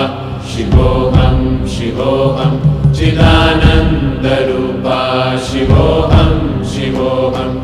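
A mantra chanted in a sung voice over a musical backing.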